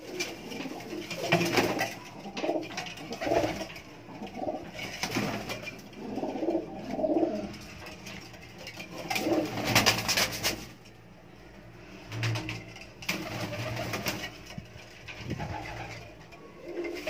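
Domestic pigeons cooing repeatedly, low rolling coos every second or so, in a small enclosed loft. A few brief sharp noises sound between the calls.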